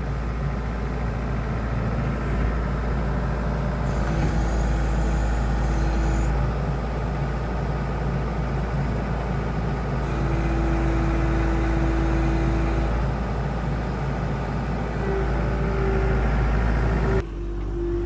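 New Holland skid steer's diesel engine running steadily as the machine works. A higher steady whine rises out of the engine sound three times, for two or three seconds each.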